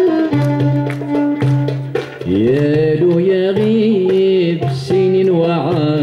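Ensemble playing an instrumental passage. A violin carries the melody with sliding and wavering notes over plucked strings and the steady strokes of a hand drum.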